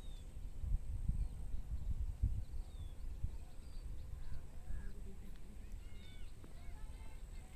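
Wind buffeting the microphone in an uneven low rumble, with small birds chirping faintly several times, mostly in the second half.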